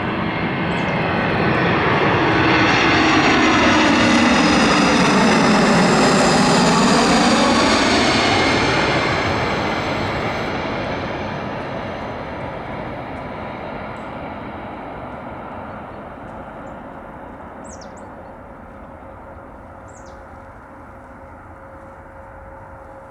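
Airbus A320 jet passing close by, its engine sound swelling to a peak a few seconds in and then slowly fading away.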